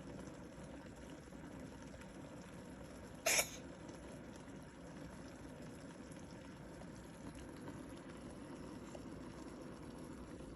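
A Sphynx cat gives a single short, sharp cough about three seconds in, over a low steady background hiss.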